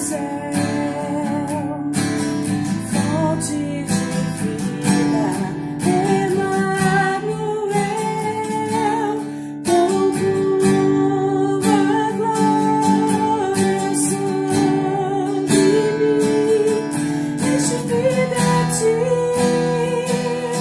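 A woman singing with a strummed acoustic guitar accompaniment.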